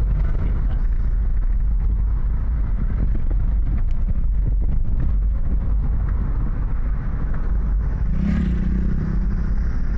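Steady low rumble of road and engine noise heard from inside a moving car. A short pitched sound, under a second long, comes about eight seconds in.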